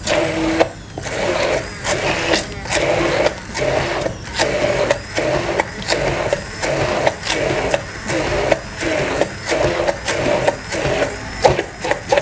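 Handheld immersion blender whirring in rhythmic surges, about two to three a second, as it grinds pumpkin seeds with olive oil and a little water into a thick paste.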